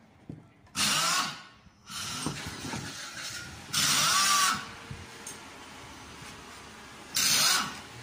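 A power tool run in three short bursts of about half a second each, its pitch rising and falling within each burst, with a lower mechanical rattle in between.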